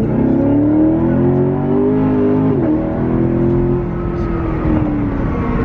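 Chevrolet Corvette C7's 6.2-litre V8, its mufflers removed, accelerating hard from inside the cabin: the exhaust note rises, drops abruptly with an upshift about two and a half seconds in, then pulls on and slowly eases.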